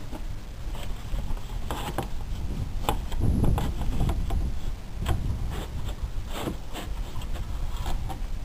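Irregular knocks, taps and scrapes of a thin luan plywood panel being handled and worked into place against fiberglass RV siding, over a low rumble.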